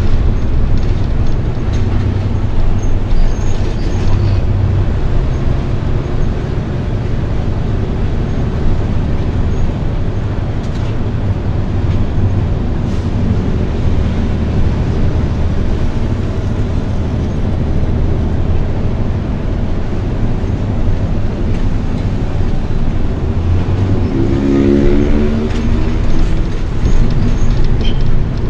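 Truck driving in traffic: a steady low engine and road rumble. About 24 seconds in, a short pitched sound rises slightly in pitch.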